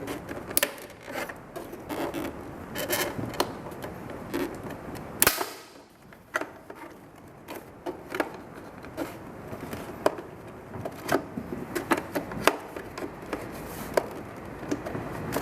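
Plastic trim removal tool prying at a truck tow mirror's plastic cap: irregular clicks and knocks of plastic on plastic with some scraping, with a sharper snap about five seconds in as the cap's clips are worked loose.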